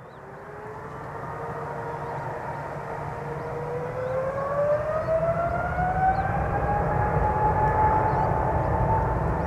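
Jet airliner engines spooling up to takeoff thrust, a slowly rising whine over a low rumble that grows louder and levels off near the end.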